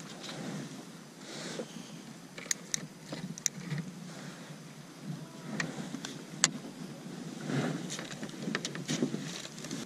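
Sharp clicks and knocks, about a dozen scattered through the middle and late part, as a fishing rod, spinning reel and gear are handled on a plastic fishing kayak, over a steady background of wind and water.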